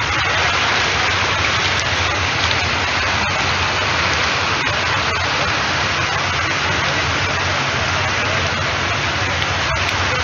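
Steady, loud rushing of falling water, an even hiss with no breaks.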